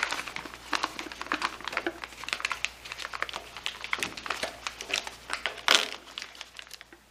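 Thin plastic bag crinkling as it is stretched and pressed over a fuel tank opening, with irregular crackles throughout and one louder crackle near the end.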